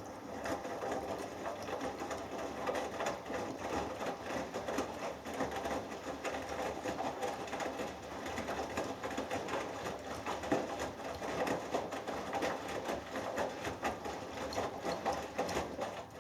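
Hoover Dynamic Next washing machine drum turning during the last rinse, wet laundry tumbling and water sloshing inside. It starts suddenly and stops near the end, when the drum pauses between turns.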